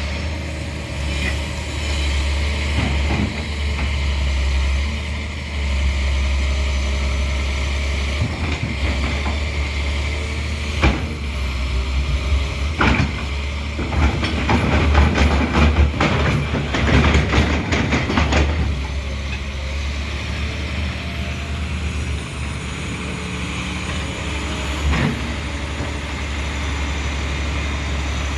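Doosan 300 excavator's diesel engine running steadily. Partway through there is a run of sharp knocks, then several seconds of dense clanking and scraping. One more knock comes near the end.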